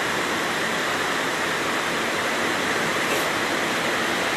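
Fast-moving floodwater rushing in a steady, loud roar.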